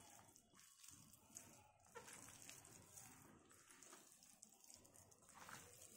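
Faint, irregular wet squishing of a hand kneading raw chicken pieces into a coating of flour and spice powders in a bowl.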